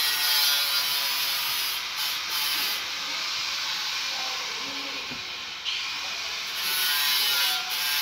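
Steady hiss with a faint hum from a running vehicle, heard from inside the cabin, stepping up in level about six seconds in.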